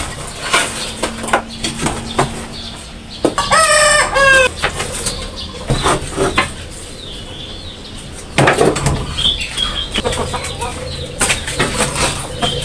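A rooster crows once, about three and a half seconds in, with chickens clucking and scattered short knocks and clatter.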